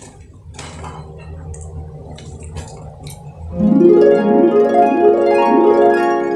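Low steady hum with a few faint clicks. About three and a half seconds in, a harp music cue starts with rippling arpeggios going up and down: the stock sound for drifting into a dream.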